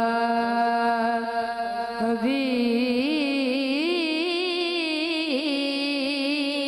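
A boy singing a naat solo: he holds one long steady note, then about two seconds in moves into a wavering, ornamented run with vibrato.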